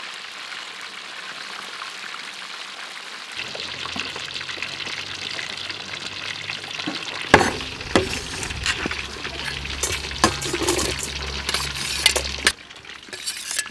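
Fish deep-frying in a wok of hot oil, a steady sizzle. From about seven seconds in, sharp clicks and knocks join it.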